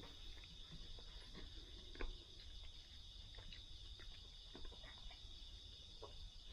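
Steady high-pitched chirring of night insects such as crickets, with a few faint clicks and taps from eating at the table, one a little louder about two seconds in.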